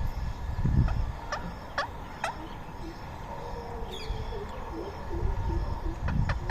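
Rose-ringed parakeets giving short, sharp screeching calls, one every second or so, over a low rumble. Near the middle, a run of quick, low warbling notes.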